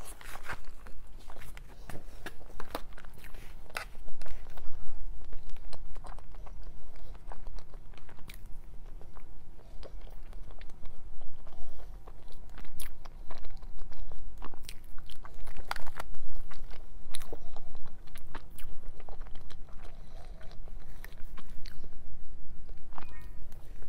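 Close-miked biting and chewing of cube-shaped cakes, a chocolate sponge cube and then a pink cream cube, with many small mouth clicks throughout.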